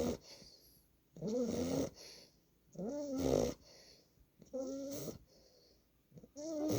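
Nine-week-old boxer puppy snoring in its sleep, about four snores, roughly one every one and a half seconds. Each snore is a short pitched drone that rises and then falls.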